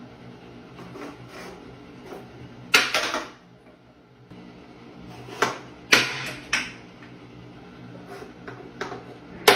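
A handful of sharp knocks and clatters of hard objects, the loudest about three seconds in and again around six seconds, over a low steady hum.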